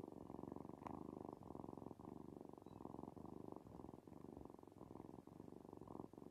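Tabby kitten purring faintly, in short pulses.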